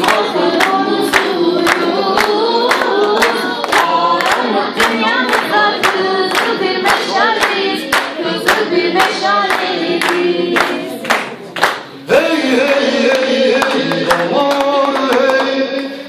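A roomful of people singing a folk song together to steady rhythmic hand-clapping. About twelve seconds in the clapping stops and the singing carries on in long held notes.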